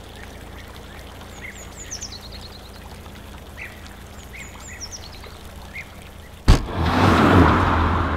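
Birds chirping over a low steady hum, with twice a run of high chirps falling in pitch. About six and a half seconds in, a sudden loud hit gives way to a car's engine rumble and rushing tyre noise as it pulls away.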